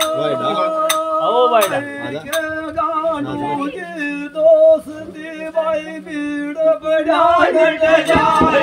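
Men singing a Holi dhamal folk song together in long, held, wavering notes, with a few hand strokes on a large chang frame drum in the first few seconds and again near the end.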